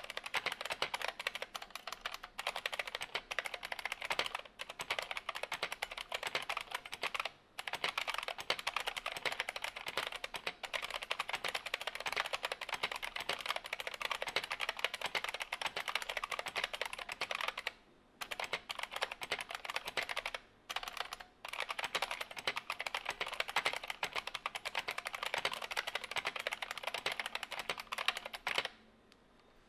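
Two-handed typing on an IBM M122 BattleCruiser keyboard's buckling-spring switches with PBT dye-sub keycaps: a dense, fast stream of clicky keystrokes with a few short pauses, stopping about a second before the end.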